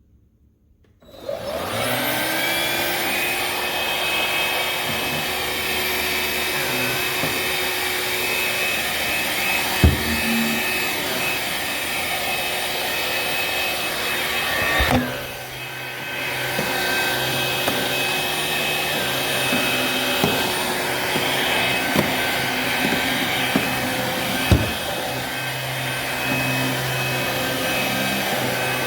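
Black+Decker POWERSERIES+ 20V MAX cordless stick vacuum switching on about a second in, its motor whine rising in pitch and settling into a steady run. A few sharp knocks sound over it, and the sound dips briefly about halfway through.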